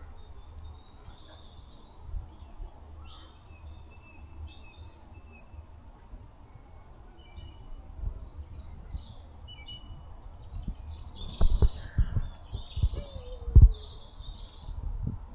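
Several wild songbirds chirping and trilling in short calls, over a low steady rumble. From about eleven seconds in, a run of low thumps, the loudest sound, with one short falling tone among them.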